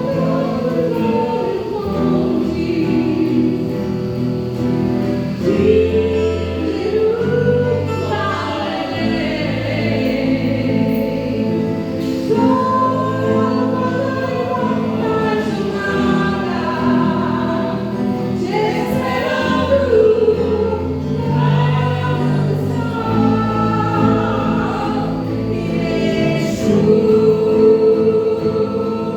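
Slow gospel worship song: voices singing together in a choir over sustained, slowly changing chords and bass.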